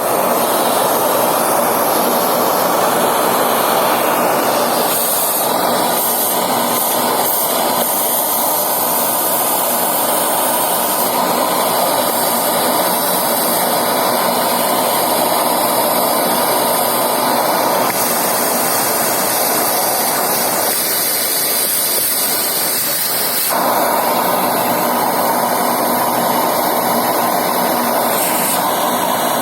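A Henry cylinder vacuum cleaner running steadily, its tone shifting a few times.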